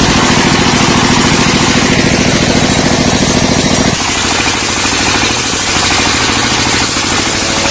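Engine running with a rapid, even pulsing beat; its deep part drops away about four seconds in, leaving a lighter sound.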